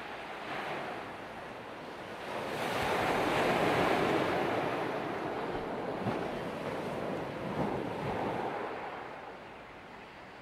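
Sea surf: a wave washes in, swelling about two seconds in and slowly fading near the end.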